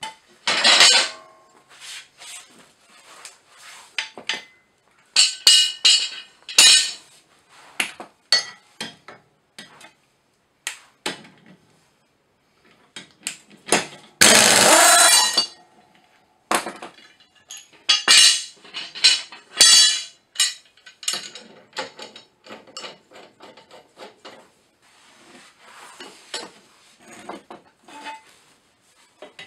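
Metal tools and mower parts clinking and knocking in quick, irregular strikes, with one loud burst of about a second and a half from an air impact wrench on a mower blade bolt about halfway through.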